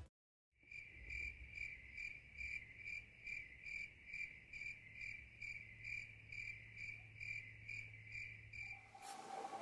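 Cricket chirping: a faint, even run of short high chirps, about two a second, that stops near the end.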